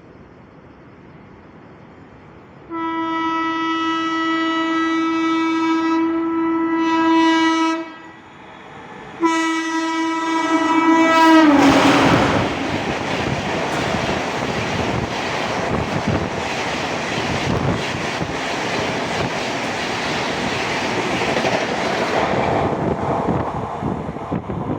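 A WAP-7 electric locomotive sounds its horn in two long blasts, the second dropping in pitch as the locomotive passes. The Duronto express then rushes by at high speed, its coaches clattering over the rail joints, and the noise eases off near the end.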